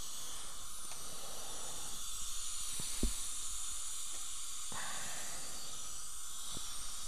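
Steady hiss of dental suction running, with a few light clicks.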